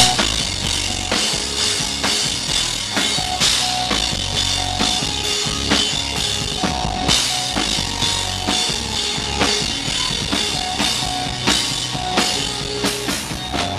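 Live rock band playing, with a steady drum-kit beat and electric guitar.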